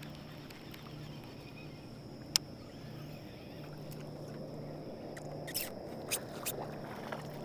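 Quiet handling of a fishing rod and baitcasting reel as a white hollow-body popper frog lure is reeled up and lifted from the water. A faint low hum runs under a sharp click about two and a half seconds in and a few lighter clicks around six seconds in.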